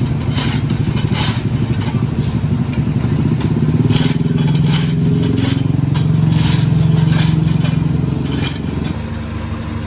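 Diesel engine of road-paving machinery running under load, its drone rising about four seconds in and easing off near the end, with short scraping strokes repeating about once a second.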